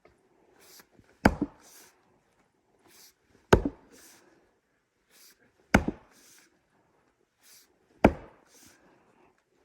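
A big log being chopped by hand: four heavy wooden strikes about two seconds apart, each with a quick second knock just after.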